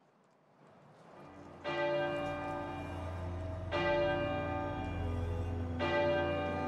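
A church bell tolling slowly, three strokes about two seconds apart, each stroke ringing on, over a low steady drone.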